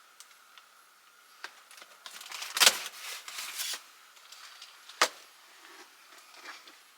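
Household items being handled and moved about: scattered light clicks, a burst of clattering and rustling a little after two seconds in, and a single sharp knock at about five seconds.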